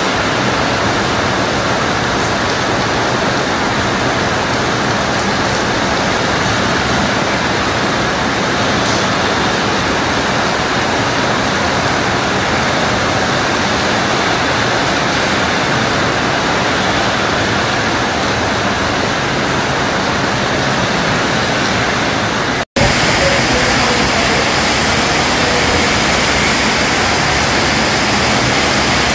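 Heavy rain pouring down steadily in an even, unbroken hiss. It cuts out for an instant about three-quarters of the way through, then carries on as before.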